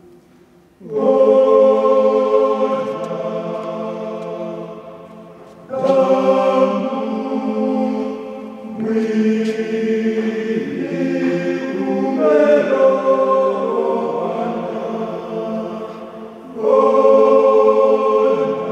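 Mixed men's and women's church choir singing a Swahili hymn in several parts, in sustained phrases that enter loudly together about a second in, near six seconds, around twelve seconds and again near seventeen seconds.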